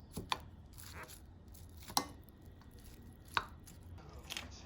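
A few sharp knocks on a hard surface: a quick pair at the start, a louder one about two seconds in and another about three and a half seconds in.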